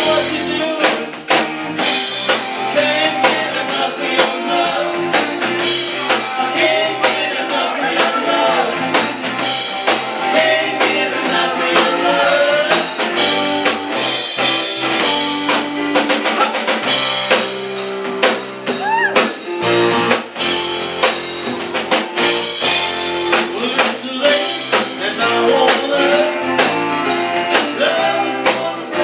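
Live rock band playing, with a drum kit keeping a steady beat under guitar.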